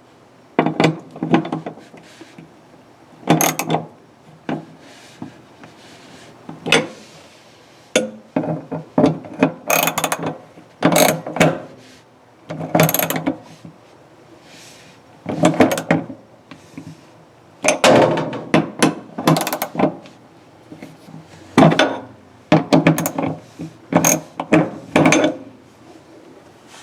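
Hand ratchet wrench clicking in repeated short bursts as screws are turned in and tightened down.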